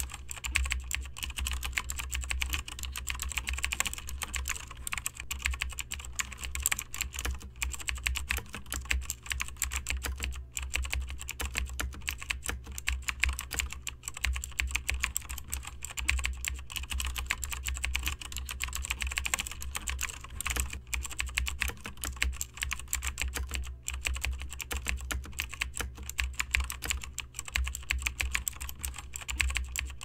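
Mechanical computer keyboard being typed on fast and without pause, a dense run of key clicks over a steady low hum.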